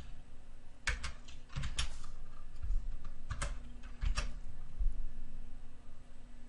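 Computer keyboard keys being pressed: a handful of separate keystrokes, scattered over the first four seconds or so and then stopping.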